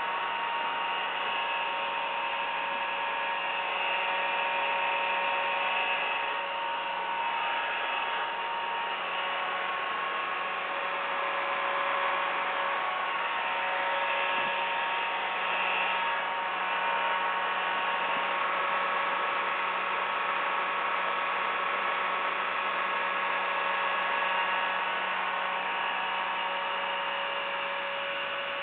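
Vacuum cleaner running steadily: an even rush of air with a motor whine on top.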